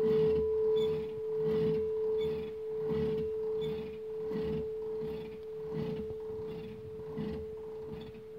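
The Vintíř bronze church bell swinging in its wooden frame, its hum ringing on and slowly fading. The tone swells and dips a little faster than once a second, with no fresh strikes of the clapper.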